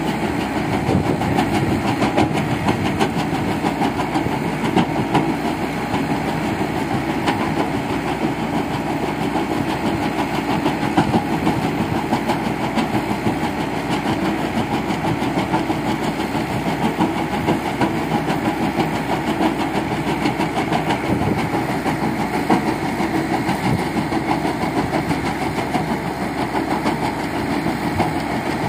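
Caterpillar 424B backhoe loader's diesel engine running under load while a hydraulic crusher bucket on its loader arm breaks stone into gravel. It makes a steady, rapid rattle and crunch, with crushed gravel pouring out of the bucket.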